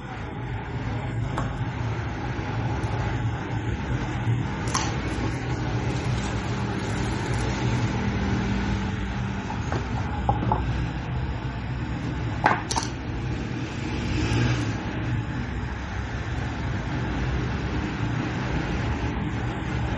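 Steady background rumble with a few sharp clicks and taps, about three of them spread through the stretch, from a phone box and its contents being handled.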